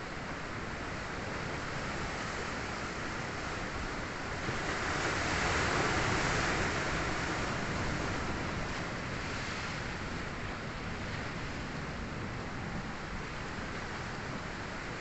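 Sea surf washing in steadily, with one wave building and breaking about five seconds in, loudest around six seconds, then settling back.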